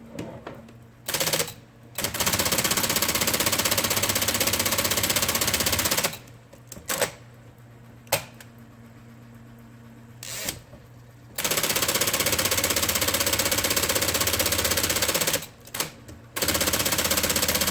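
IBM Selectric II typewriter mechanism running under power and cycling rapidly, in three long bursts of fast repeated mechanical clatter separated by short pauses with a few single clicks.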